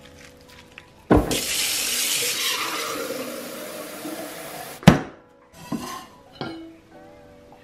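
A steady pour into a cereal bowl for about four seconds. It starts suddenly and gradually fades, then a sharp click and a few light knocks follow.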